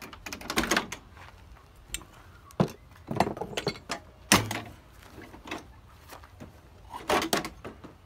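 Plastic front grille of a Chevrolet pickup being worked loose and pulled off, its retaining clips popping and the grille knocking against the body: a handful of separate sharp clicks and knocks, the loudest a little past the middle.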